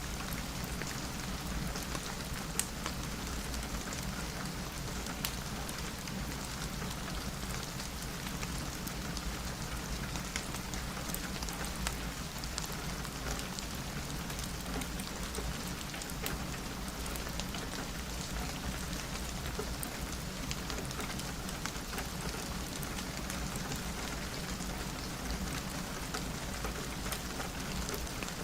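Steady rain falling on a window, an even hiss with scattered sharp ticks of single drops.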